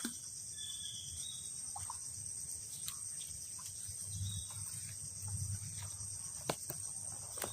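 Steady high-pitched chorus of insects, with a few faint ticks and brief chirps over it.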